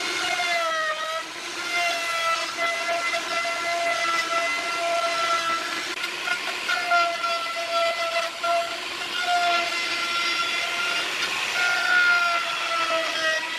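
An electric power tool's motor whining at a steady high pitch, which sags briefly about a second in and a few times after before recovering, as it does when the tool bogs under load in a cut.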